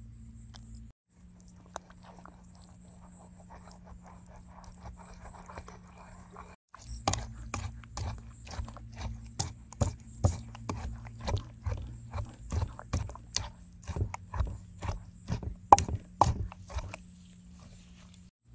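Wooden pestle pounding a wet mix of garlic, chili and sauces in a wooden mortar: a run of repeated knocks with a wet squelch, about two a second, through the second half.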